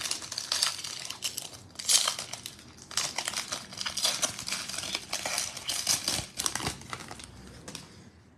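Foil trading-card pack wrapper crinkling and crackling as it is torn open by hand, in a run of irregular bursts that die away near the end.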